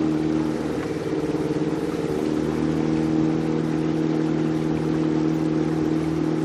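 Small motorboat's engine running steadily; its pitch wavers briefly about a second in, then settles back to an even drone.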